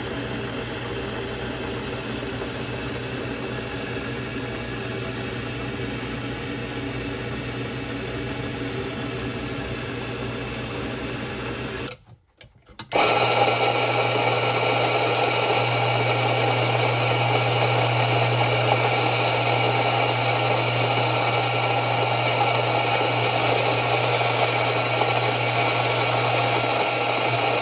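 Rancilio Rocky burr grinder running, its motor giving a steady low hum. For the first twelve seconds it is quieter and even. After a brief break it runs louder while grinding espresso into the portafilter, then stops at the end.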